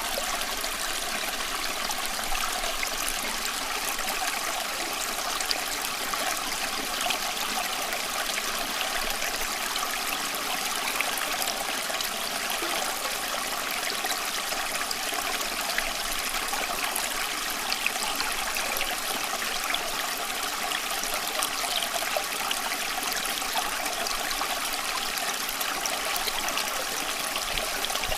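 Water running steadily, trickling and splashing in an even, unbroken rush with many small splashes.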